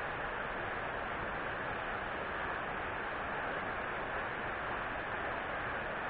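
Steady rush of water from a shallow, rocky mountain stream, an even hiss that does not change.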